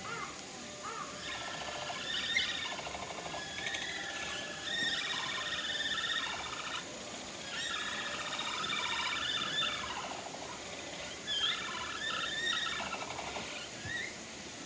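A herd of capybaras calling together in a chorus of overlapping, drawn-out fluttering calls, with short rising chirps in between.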